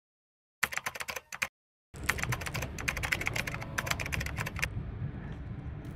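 Computer keyboard typing: a short burst of rapid key clicks about half a second in, a pause, then a longer run of fast typing for about three seconds.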